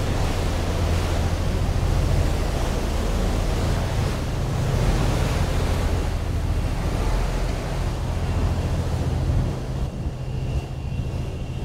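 Wind buffeting the microphone and rushing water on an open ferry deck, over the steady low drone of the ship's engines. The wind noise eases a little near the end.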